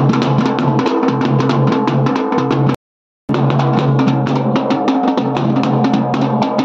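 Loud devotional music driven by a fast, even drumbeat over sustained low tones. It cuts out abruptly for about half a second, a little under three seconds in, then carries on.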